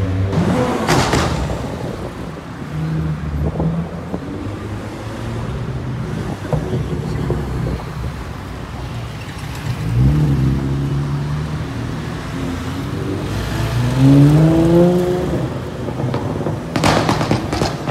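Car engines in passing street traffic. One car accelerates about ten seconds in, its engine note rising, and another accelerates more loudly around fourteen seconds, its note climbing steeply.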